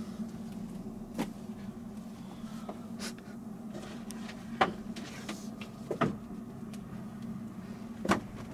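Knocks and clatter of belongings and storage bins being shifted around in a cramped camper, about five sharp bumps with the loudest near the middle, over a steady low hum.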